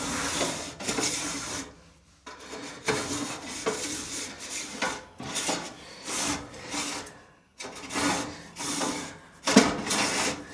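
Irregular scraping and rubbing strokes as wet, packed lint is dug out of a clogged dryer vent, with a couple of brief pauses.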